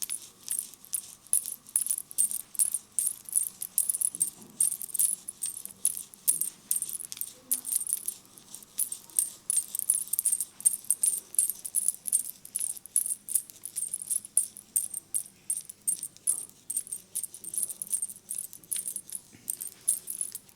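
Vigorous hand head massage close to the microphone: a rapid, crisp rattling and clicking, about four strokes a second, that stops abruptly at the end.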